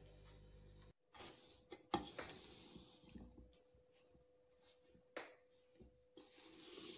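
Faint scraping of a spatula stirring semolina roasting in ghee in an aluminium pot, with a few sharp knocks of the spatula against the pot.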